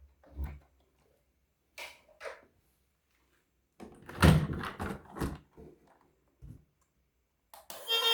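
Scattered knocks, clicks and clatter of objects being handled, with a louder burst of several knocks about four to five and a half seconds in. Music comes in near the end.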